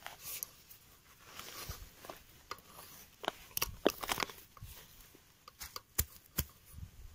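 Small hand shovel digging in soil, its blade scraping and crunching through the earth in short irregular strokes, with two sharp knocks about six seconds in.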